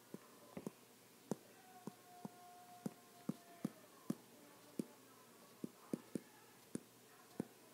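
Stylus tapping and clicking on a tablet screen while numbers are handwritten: about sixteen short, faint taps at uneven intervals, one with each pen stroke.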